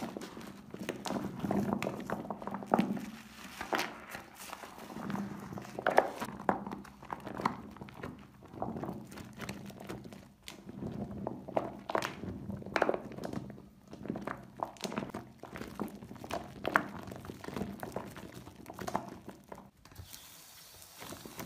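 Hands squeezing and crushing soaked soap pieces in foamy water, giving an irregular string of short wet squishing sounds and soft knocks.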